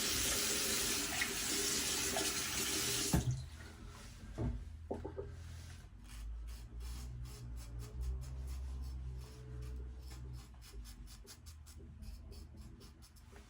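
Bathroom sink tap running, shut off abruptly about three seconds in. Afterwards only a low hum and a few faint knocks and handling sounds.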